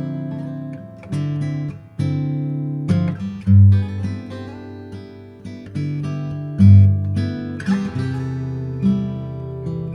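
Background music: acoustic guitar strumming chords, with a deep bass note standing out twice.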